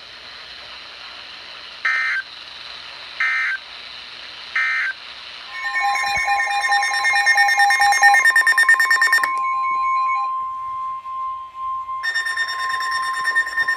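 NOAA Weather Radio alert signalling: three short warbling data bursts about a second and a half apart, marking the end of one warning message. Then a long steady alert tone of about 1 kHz, held for about eight seconds, with other steady electronic tones layered over it.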